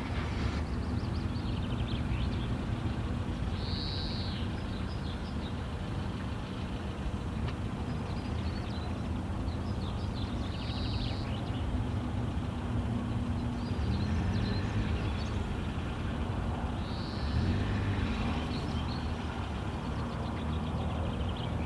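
Steady low rumble of motor vehicles. Over it, a bird gives a short arched whistled call about every six or seven seconds, with faint chirps in between.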